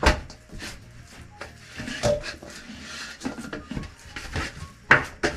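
Chapati dough being kneaded by hand in a stainless steel bowl: irregular soft thumps and knocks of the dough and hands against the metal, loudest at the start and about five seconds in.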